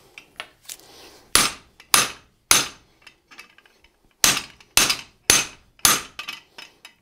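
Hand hammer striking the top die of a Smithing Magician guillotine tool fitted with tenoning dies, forging a 3/8-inch tenon on a hot flat bar. There are three sharp metallic blows about half a second apart, a pause of over a second, then four more, with faint small clinks between.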